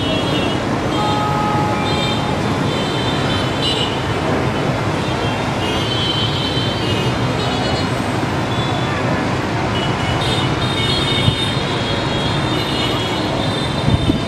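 Busy street traffic: a steady din of engines and tyres, with horns beeping now and then.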